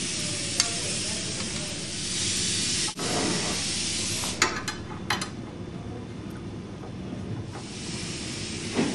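Steady background hiss, broken by a brief dropout about three seconds in, with a few small metallic clicks a little after the middle as step-off gauges are clipped onto a steel framing square and their thumbscrews tightened.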